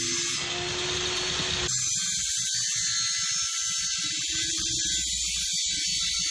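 Table saw running as a plywood sheet is fed through its blade, with a fuller cutting noise from about half a second in to nearly two seconds, then a steadier machine whine.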